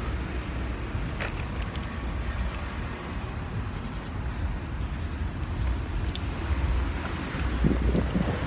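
Road traffic noise from passing cars, a steady wash with a low rumble, growing a little louder near the end.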